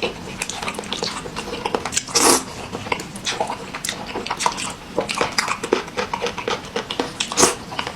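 Close-miked chewing and biting: quick, irregular wet smacks and clicks of a person eating, played back at double speed.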